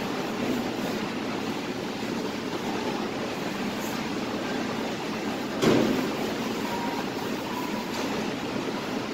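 Steady rushing hum of commercial kitchen ventilation under a stainless exhaust hood, with one short thump a little past halfway.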